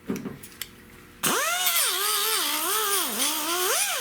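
Handheld grinder starting about a second in and grinding sheet steel, its whine dipping and rising as the disc bites into the metal and eases off. A few light handling clicks come before it.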